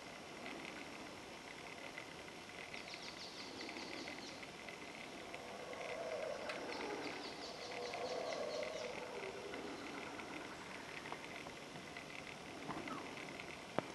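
Faint outdoor background with rapid high chirps or trills coming and going, and a dull low rumble swelling through the middle. A sharp click near the end.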